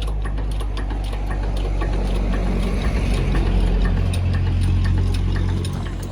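An engine or motor running steadily with a low, even hum and light ticking over it. It dies away right at the end.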